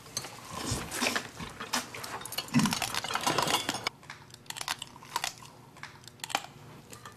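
Someone eating soy-sauce-marinated raw crab (ganjang-gejang), crunching and chewing on the shells with irregular sharp clicks and crackles. The sounds thin out after about four seconds.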